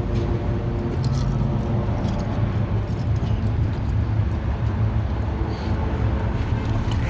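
Steady low hum of an idling vehicle engine, with faint scattered ticks over it.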